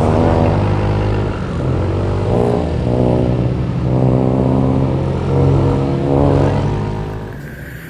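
Motor vehicle engine running and being revved several times, its pitch rising and falling in repeated swells before fading near the end.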